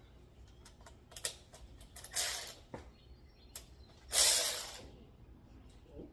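Metal hand tools clinking and rattling as wrenches and sockets are handled and sorted: scattered sharp clicks with two louder, longer rattles, about two and four seconds in.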